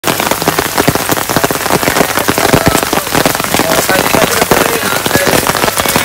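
Rain falling steadily, a dense patter of individual drops striking a surface.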